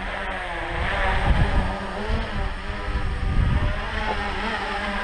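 Tricopter's three motors and propellers buzzing. The pitch wavers up and down as the throttle changes while it flies low.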